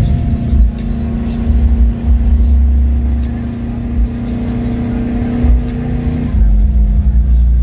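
Subaru Impreza GC8's turbocharged flat-four running through a straight-through exhaust, with a deep rumble and a steady drone at constant revs. The drone cuts out about six seconds in as the engine note changes.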